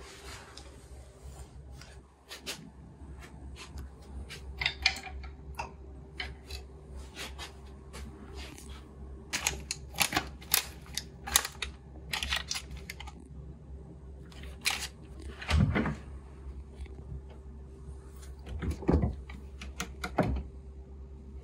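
Close handling of paper sachets and small items on a tabletop: a string of short clicks and paper crinkles, busiest in the middle, then three dull thumps in the last few seconds, over a steady faint hum.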